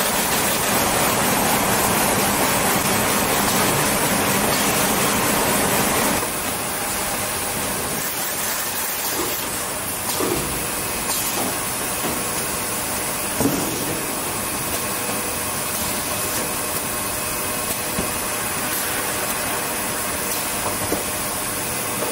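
Automatic carton encasing machine running: a steady hiss and hum of machinery, with a few sharp clicks and knocks from its moving parts as it folds a cardboard case. The hiss is louder for about the first six seconds, then drops a little.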